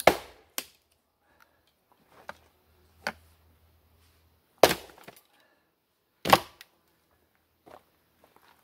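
Hammer blows on a steel splitting wedge driven into a log: sharp, clanking strikes. Three loud blows, one at the start and two about a second and a half apart past the middle, with lighter taps between.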